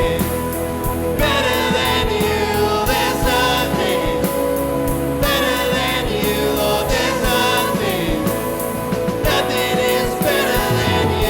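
Live contemporary worship song: band instruments playing with sung vocals, over a steady low beat.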